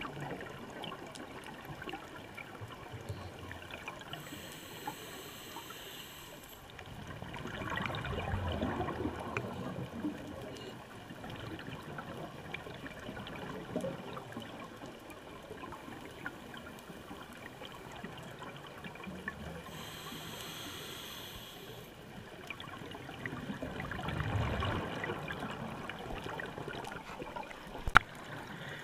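Scuba regulator breathing heard underwater: two slow breaths, each a short hiss followed by a longer rush of exhaled bubbles. A sharp click comes near the end.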